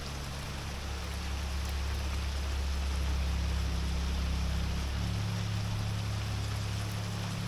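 Rainwater from a boat's rain catch system running steadily out of a tap, with rain falling around it. A steady low hum lies underneath and shifts in pitch about five seconds in.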